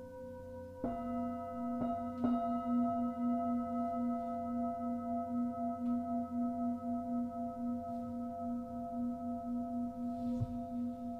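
Singing bowls struck a few times near the start and left ringing, with long sustained tones and a steady pulsing waver in the low ring.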